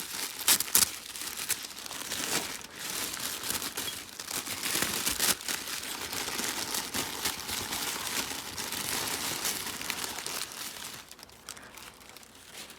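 Wrapping paper crinkling and rustling as gifts are unwrapped by hand, with sharp crackles, dying down near the end.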